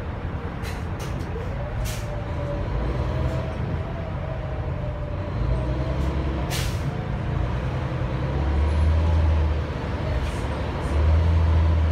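Cabin noise inside a 2000 Neoplan AN440A diesel transit bus under way: a steady low engine drone with road noise and a faint whine that rises in pitch about a second in. There are scattered rattles and clicks and a brief hiss about halfway through, and the low drone swells louder twice in the second half.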